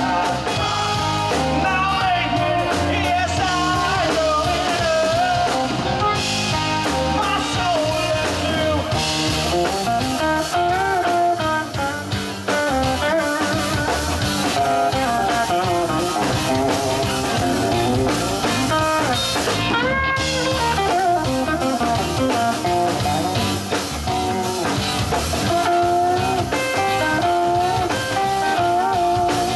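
Live rock band playing on two electric guitars, electric bass and drum kit, with a bending melodic line riding over the steady groove.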